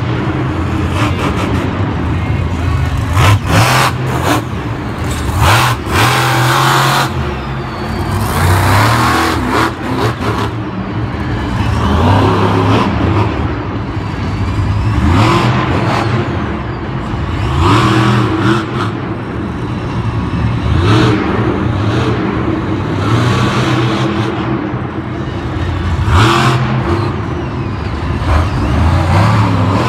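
Monster truck's supercharged V8 engine revving hard over and over, its pitch climbing and dropping every couple of seconds, with several sharp bangs about three to seven seconds in.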